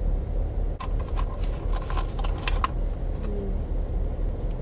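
Small hard makeup items clicking and clinking together as they are handled, in a quick cluster about a second in. A steady low rumble runs underneath.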